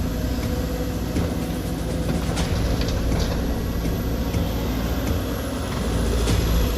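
Sumitomo hydraulic excavator's diesel engine running steadily, with a few sharp knocks about two and a half, three and six seconds in.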